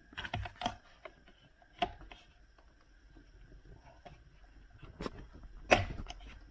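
Clicks and knocks from handling the cabin filter and its housing behind the glovebox: a quick cluster at the start, a single knock about two seconds in, and two more near the end, the last the loudest.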